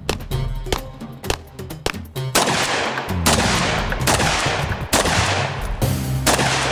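Music with sharp cracks over it, then from about two seconds in a string of gunshots, roughly one a second, each ringing out, from a shouldered long gun fired at steel and clay targets.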